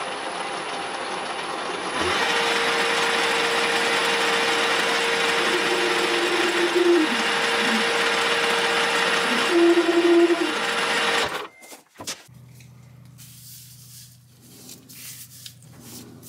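Metal lathe running, centre-drilling the end of a spinning silver steel bar held in a four-jaw chuck: a steady mechanical whir with a high hiss, louder from about two seconds in, with two short squeals near the middle. It stops abruptly about eleven seconds in, leaving a low hum and a few light knocks.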